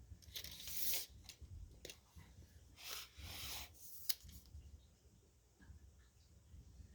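Faint handling noises on a workbench: two brief scraping or rustling sounds and two sharp clicks as a wooden handle and a measuring tool are handled, then near quiet.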